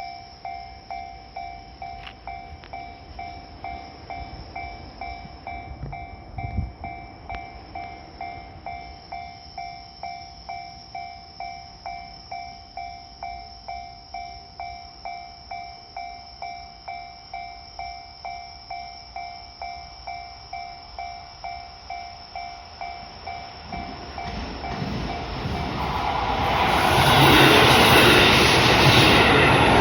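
Japanese level-crossing warning bell ringing steadily at about two strokes a second. From about 24 seconds in, a train approaches and runs over the crossing, growing loud near the end.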